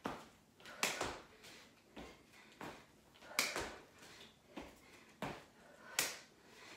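Irregular soft thumps and scuffs of sneakers and hands landing on a foam exercise mat over a tiled floor during repeated burpees: squat, kick back to plank and jump, about one or two knocks a second.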